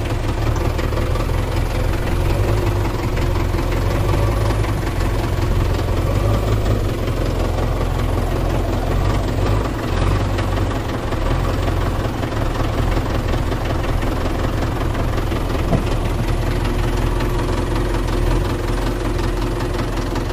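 An engine idling steadily, with a continuous low chugging and no change in speed.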